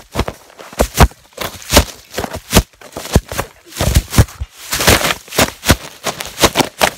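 Handling noise on a phone that is filming while it is moved and knocked about: an irregular run of sharp knocks and clatters against the microphone, about two or three a second.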